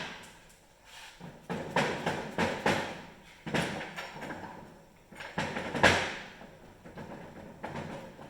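Hand tools and metal engine parts clanking and scraping while a Polaris 680 triple snowmobile engine is taken apart: a series of irregular knocks and scrapes, the loudest about six seconds in.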